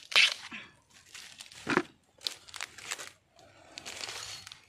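Dry bamboo leaf litter crackling and rustling as a hand rummages through it, in several separate bursts, the loudest a sharp crackle just after the start and another a little under two seconds in.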